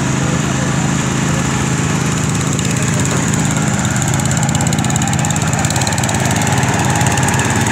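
Small garden tractor engines running steadily at an even speed.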